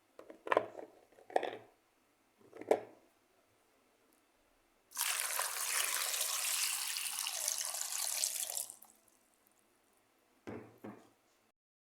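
A few short knocks and clicks, then water runs steadily for about four seconds and stops, with two more short knocks near the end.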